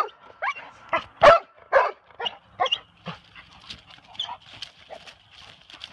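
A dog barking: about seven loud barks in quick succession over the first three seconds, then fainter sounds.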